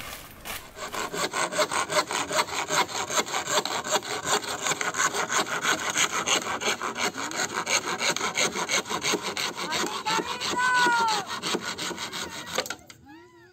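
Sawing through wood in quick, regular strokes. Near the end comes a short rising-and-falling whistle-like call, then a few fast chirps before the sound cuts off.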